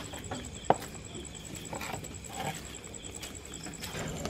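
Insects trilling steadily in a rapid, even pulse, with one sharp click a little under a second in.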